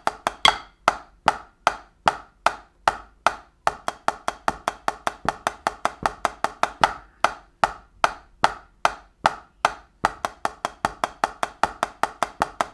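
Drumsticks playing even, alternating single strokes at a slow tempo, about two to three sharp taps a second: a beginner singles exercise for snare drumming.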